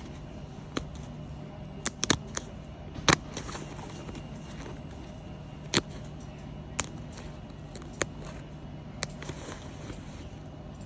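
Stitching in a camouflage uniform seam being cut with a small handheld razor blade: irregular sharp snaps as the threads part, about nine in all, over a steady low hum.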